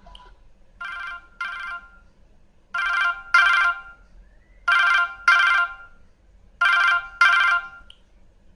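Siemens M65 mobile phone playing a built-in ringtone through its loudspeaker: an imitation telephone bell ringing in pairs, four double rings in all, the first pair quieter than the rest.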